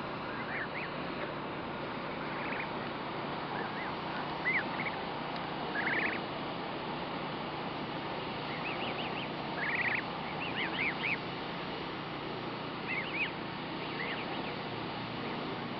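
Goslings peeping: short, high chirps that rise and fall in pitch, coming in scattered clusters, over a steady background hiss.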